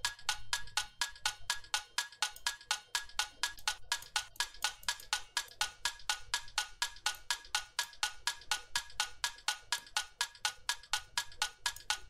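Programmed tick-tock clock loop: a short, bright percussion sample ticking rapidly and evenly at a steady tempo. The sample is low-pass filtered and has a small plate reverb on it, tucking it into the background.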